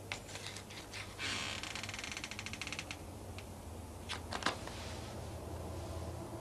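A few sharp clicks, then a fast rattle lasting about two seconds, and a few louder knocks near the end, over a steady low hum.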